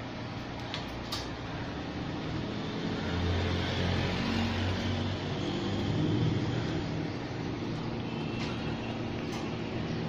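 A low, steady engine-like hum that swells about three seconds in and eases off a few seconds later, with a few faint clicks.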